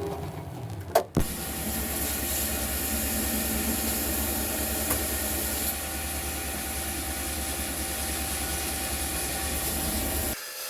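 A motor-driven workshop tool running steadily with a low hum and a hiss, starting after a click about a second in and cutting off abruptly near the end.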